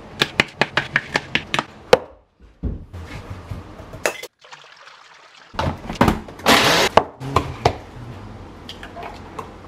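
Kitchen knife chopping a banana on a plastic chopping board: a quick run of sharp taps for about two seconds. After it come scattered knocks and clinks of the plastic blender cup and a glass, and a brief rushing noise past the middle.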